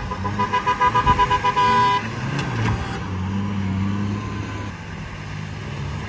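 A vehicle horn sounds in a rapid stutter of short beeps and cuts off suddenly about two seconds in. After that an off-road SUV's engine runs under load as it climbs out of the river onto sand.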